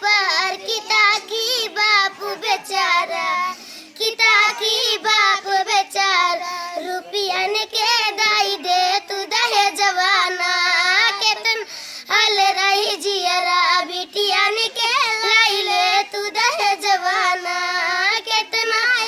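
A girl singing a folk song alone in a high voice, with long held notes that waver in pitch.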